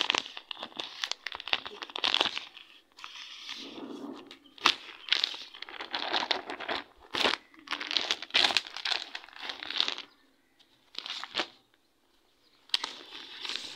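Clear plastic packaging around a folded bedsheet set crinkling and crackling as it is pulled open by hand, in repeated bursts with sharp snaps, pausing for about two seconds near the end before a last burst.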